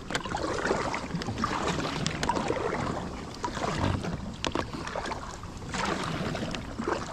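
Kayak paddle strokes in creek water: splashes and gurgles that swell every second or two, with a few light clicks and knocks.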